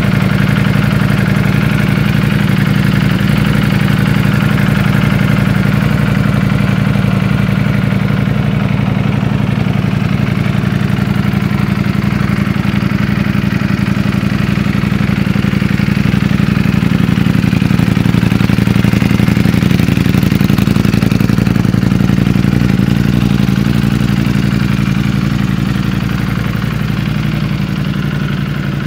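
Ducati Streetfighter V4S's V4 engine idling steadily, a little fainter near the end.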